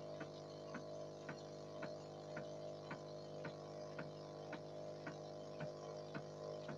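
Animatronic puppet's small electric air pump and motor running with a faint steady hum, with sharp mechanical ticks about twice a second.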